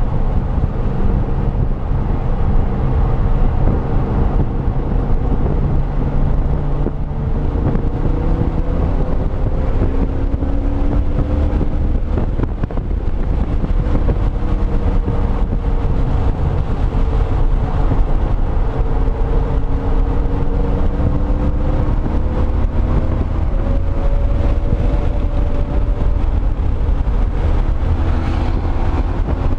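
2005 Pontiac GTO's LS2 V8 pulling hard on track, its note climbing slowly in long pulls through the gears, under a heavy low rumble of wind and road noise.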